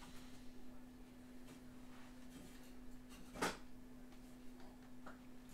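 Small handling sounds at a craft table, with ink bottles and an alcohol-ink stamper being picked up and set down: one sharp tap about three and a half seconds in and a few faint clicks, over a steady low hum.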